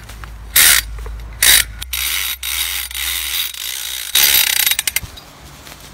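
Rope come-along being worked: its metal lever and ratchet pawl clatter and click in a few short, loud bursts, with a steadier hiss between them.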